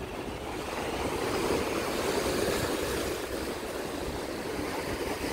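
Rough sea surf washing and breaking against shore rocks, a steady wash that swells slightly about two seconds in, with wind noise on the microphone underneath.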